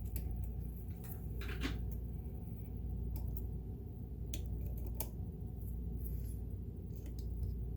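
Light, scattered clicks and scrapes of a small cleaning tool working on a sewing machine's metal parts, over a steady low hum.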